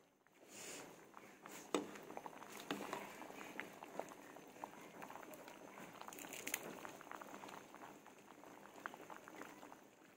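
Sinigang broth simmering in a stainless steel pot full of kangkong leaves: a faint, steady bubbling crackle. A few light ticks, about two seconds in and again past the middle, come as a ladle pushes the leaves down.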